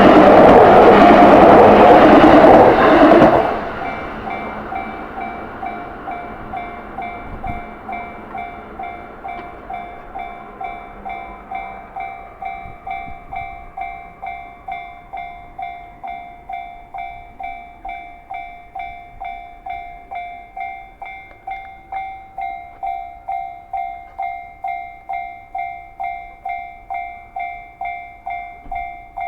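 A Yamanote Line train rushes past over the level crossing, its noise cutting off about three and a half seconds in. The crossing's electronic warning bell goes on dinging steadily, about one and a half strikes a second, signalling that the crossing is still closed.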